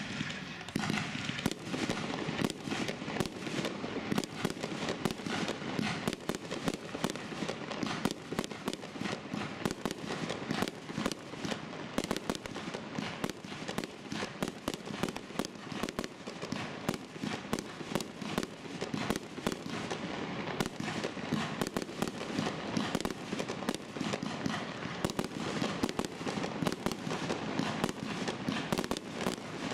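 Fireworks going off in rapid succession: sharp launches and bursts following one another several times a second without a pause.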